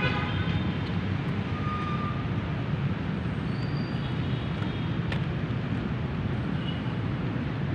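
Steady low outdoor rumble of background noise, with a few brief high chirps about two, four and seven seconds in.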